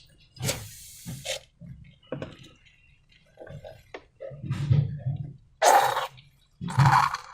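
Wet, sticky slime being worked by hand: irregular squelches and crackles with soft low thuds, the loudest two bursts near the end.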